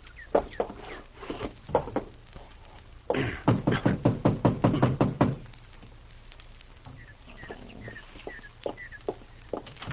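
Radio-drama sound effects: scattered knocks and clomps, then a dense, louder run of rapid knocking and clatter lasting about two seconds, followed by a few short, evenly spaced high chirps.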